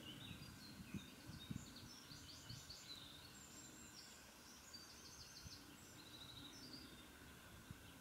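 Faint calls and song of small birds, a run of short high chirps and trills over a quiet background, with a few soft low thumps in the first two seconds.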